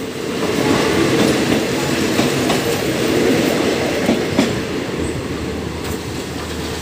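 Passenger coaches of a departing train rolling past at low speed: a steady rumble with wheels clacking over rail joints. The last coach passes about four seconds in, the sound eases as the train pulls away, and a low steady hum comes in near the end.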